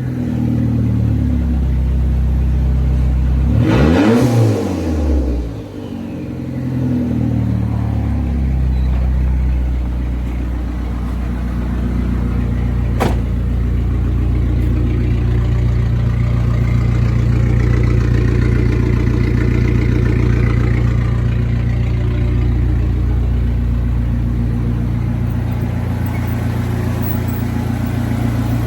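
Turbocharged Dodge Neon's twin-cam four-cylinder engine, exhaust run nearly straight with no muffler and loose piping. It is revved once, sharply up and back down, about four seconds in, then settles to a steady idle. A single sharp click about halfway through.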